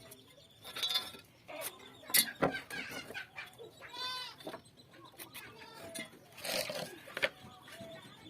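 A few sharp knocks, with a short pitched animal call about four seconds in.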